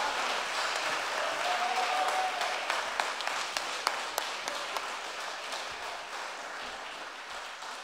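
Audience applauding, slowly dying down, with a voice calling out briefly about two seconds in.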